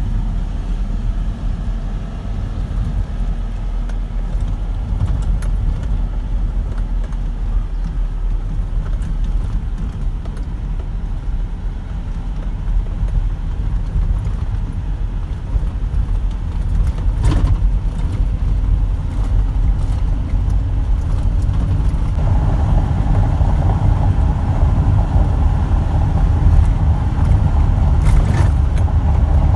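Truck engine and road noise inside the cab while driving: a steady low rumble that grows louder in the second half, with a higher drone joining about two thirds in and a few brief rattles.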